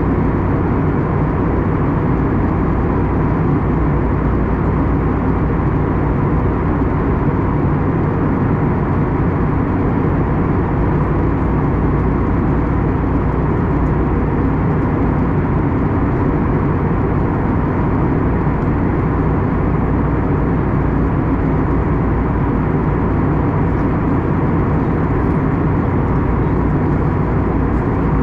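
Cabin noise inside an Airbus A321neo airliner in flight: a steady, even rumble of engine and airflow noise with a faint steady hum.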